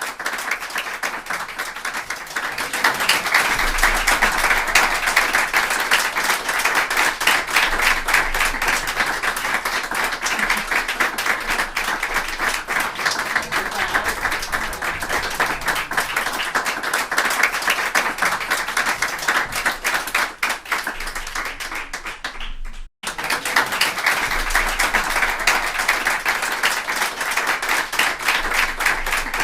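A group of people applauding: dense, steady clapping that swells about three seconds in, cuts out for a split second near the end, then carries on.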